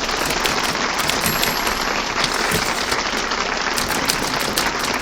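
Studio audience applauding steadily, heard in an old radio broadcast recording, with faint typewriter key clacks over it.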